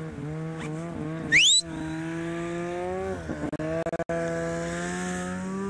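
Snowmobile engine idling steadily, its pitch wavering slightly. About a second and a half in there is a brief, loud, high whistle-like tone that rises quickly in pitch.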